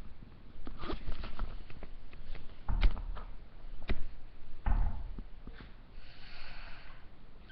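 Scattered knocks, thumps and scuffling, typical of young kittens moving about and being handled, with the two loudest thumps about three and five seconds in. A breathy rustling noise lasts about a second around six seconds in.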